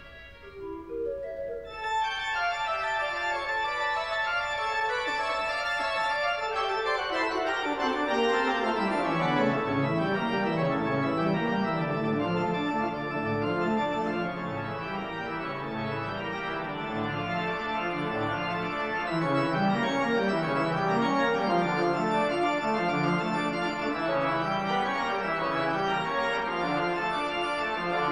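Instrumental background music with held, organ-like chords. About two seconds in it grows fuller, and a lower part steps down in pitch over the following several seconds before the music settles into a steady, dense texture.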